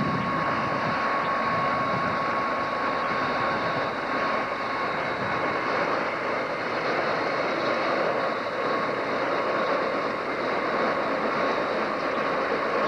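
Light helicopter running on the ground with its main rotor turning: a steady engine and rotor noise with a constant high tone running through it.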